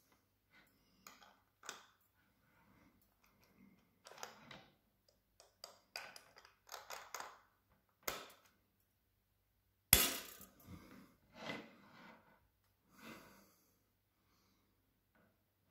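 SilverCrest hand blender parts, plastic and metal, handled and fitted together: scattered light clicks, clinks and rustles. One sharp, loud click about ten seconds in as the balloon whisk attachment snaps onto the motor unit. The motor is not running.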